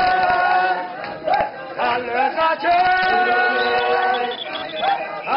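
A group of men and women singing together unaccompanied, with long held notes.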